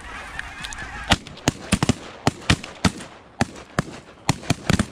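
Canada geese honking overhead, then several shotguns firing in a rapid, ragged volley of a dozen or more shots at the passing flock, starting about a second in.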